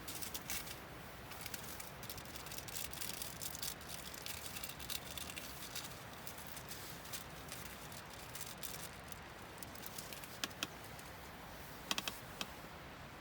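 Irregular small clicks and light rattling, dense at first and thinning out, with a few sharper clicks near the end.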